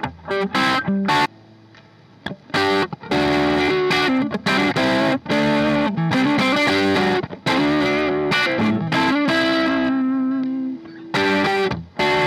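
PRS S2 Custom 24 electric guitar played with a distorted tone: short chords and riffs broken by brief pauses, with one note held for about two seconds near the end.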